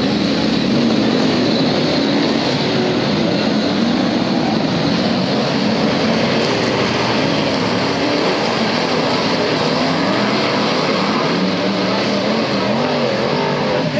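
Formula 1 stock car engines running continuously on a dirt oval, their pitch wavering up and down as the cars throttle on and off.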